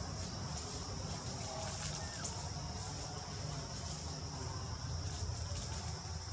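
Steady high-pitched drone of insects calling in the forest, constant throughout, over a low steady background rumble.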